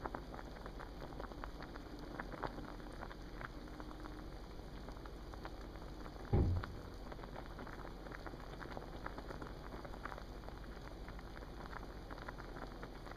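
Water boiling in a pot, a steady crackle of many small bubbles popping. About six seconds in there is a single loud low thump whose pitch drops quickly.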